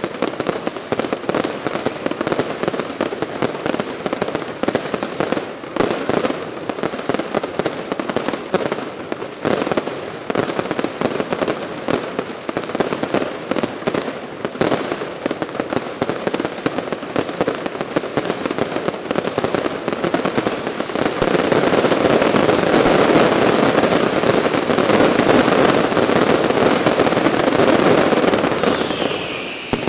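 Fireworks display: a continuous rapid crackle of many small explosions that grows denser and louder about two-thirds of the way through, with a falling whistle near the end.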